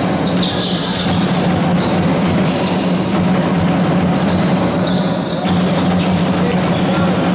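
Basketball game in play: the ball bouncing on the court with a steady din echoing in the sports hall, and scattered sharp knocks throughout.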